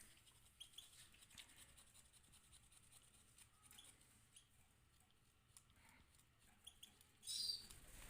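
Faint scratching and clicking of almonds being ground by hand, scattered small ticks throughout, with one brief high chirp near the end.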